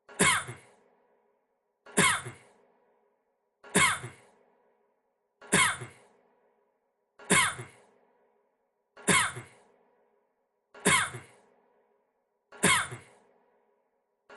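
A man's single short cough, repeated identically about every 1.8 seconds, eight times: one recorded cough played on a loop.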